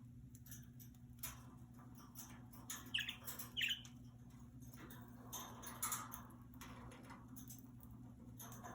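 Budgerigars in a cage: two short, high chirps about three seconds in, with scattered small clicks and scratching of the birds moving about the cage.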